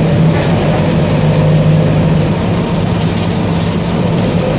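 Engine of a VW 15-190 EOD bus running with a steady, even drone that holds its pitch, without revving.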